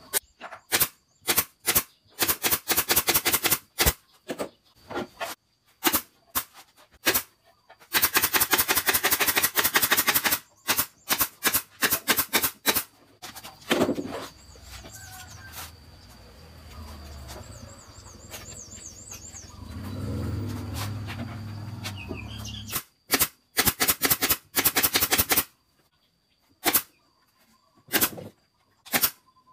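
Pneumatic nail gun firing nails into plywood cabinet panels: sharp single shots and quick rapid-fire runs of strikes. In the middle there is a stretch of low rumble with no shots.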